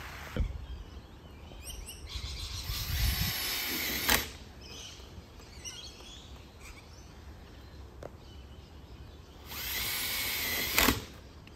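Cordless drill driving screws into a PVC gate hinge: two short runs, each ending abruptly as the screw seats.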